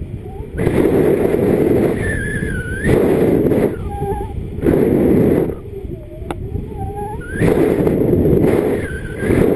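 Wind rushing over a paraglider pilot's camera microphone in flight, coming in surges about every one and a half to two seconds. Short warbling tones sound in the quieter moments between the surges.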